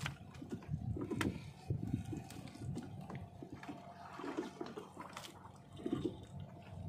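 Wet fishing net being hauled by hand over the side of a small boat: irregular sloshing and dripping of water, with a few sharp clicks and a faint steady hum underneath.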